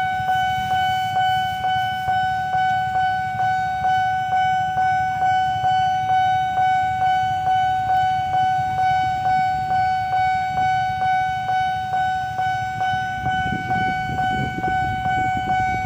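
Railway level-crossing warning bell ringing steadily at about two strikes a second over a low rumble.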